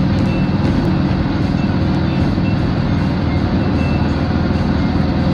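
Steady low rumble of a vehicle in motion, heard from inside the cabin.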